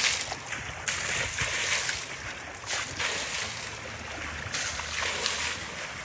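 River water splashing and sloshing around an elephant's legs as it stands in the shallows, in several uneven surges.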